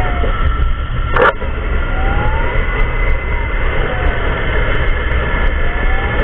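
Emergency siren wailing slowly up and down, about one rise and fall every four seconds, under a loud low rumble of vehicle and wind noise on the move. A sharp click sounds about a second in.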